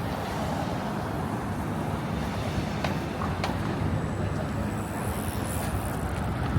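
Steady city street traffic noise: a continuous low rumble of passing vehicles, with a couple of faint clicks midway and a faint high whine in the second half.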